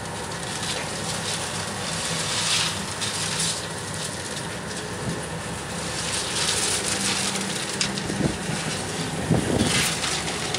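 The towing rescue boat's engine droning steadily under load, beneath wind and sea noise that swells and fades every few seconds.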